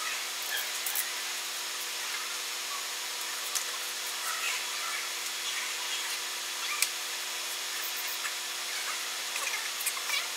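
DLP resin 3D printer running as its build plate lifts slowly: a steady hiss with faint steady tones, scattered small squeaks and a few sharp clicks.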